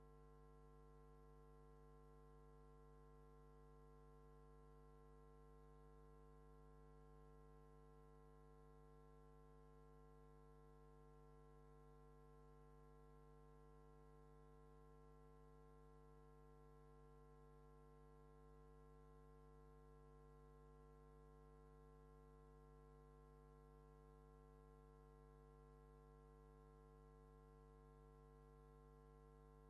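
Near silence: only a faint, steady electrical hum of several fixed tones, unchanging throughout.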